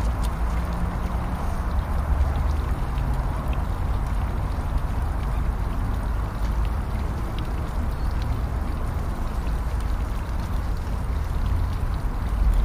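Wind buffeting the microphone: a steady low rumble under an even outdoor hiss.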